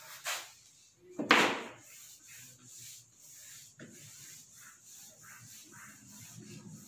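Whiteboard eraser rubbing across the board in a run of short wiping strokes, one louder swipe about a second in.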